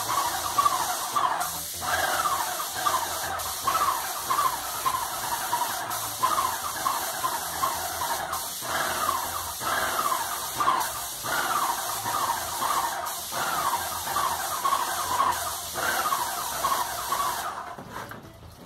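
Graco Magnum LTS 15 airless paint sprayer spraying paint: a steady hiss at the gun, with a short falling squeal repeated over and over, until both cut off suddenly near the end as the trigger is let go.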